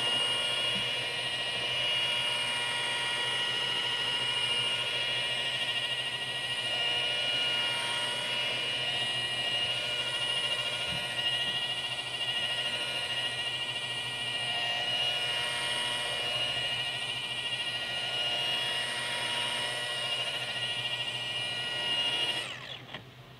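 Electric polisher with a wool pad running at a steady low speed against painted aircraft skin, a steady motor whine as it buffs exhaust residue off the paint. It switches off near the end.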